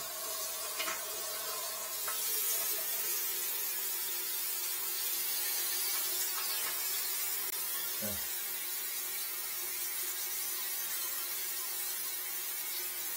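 Water running steadily in a hiss with a faint hum, as the plumbing refills after a toilet clog has been cleared. A brief low thud about eight seconds in.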